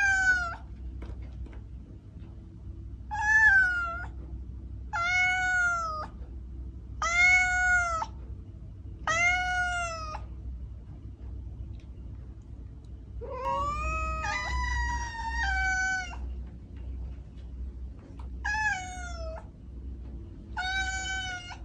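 Domestic cat meowing over and over, about eight drawn-out meows a couple of seconds apart, each rising and then falling in pitch. About halfway through comes one longer meow that wavers and breaks in pitch. A low steady hum runs underneath.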